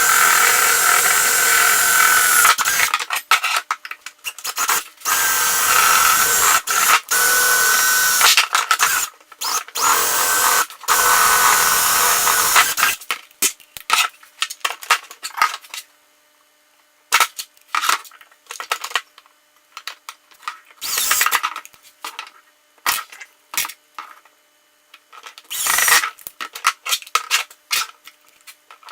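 Hand-held power drill running a 3/16-inch bit in a string of bursts, a steady whine each time, stopping and restarting for about the first thirteen seconds. After that come scattered clicks and knocks, with a few short louder bursts of tool noise.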